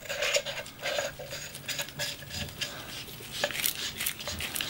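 Threads of a ThruNite Catapult V5 flashlight's hard-anodized aluminium body being screwed together by hand: a run of light scraping clicks and ticks as the threaded sections turn. The threads run very finely and smoothly.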